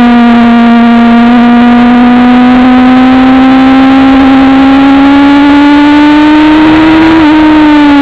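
Suzuki GSX-R750 SRAD's inline-four engine under sustained throttle, its note climbing steadily as the bike accelerates, with a brief break about seven seconds in and the pitch starting to fall just before the end as the throttle closes. The on-board recording is loud enough to distort.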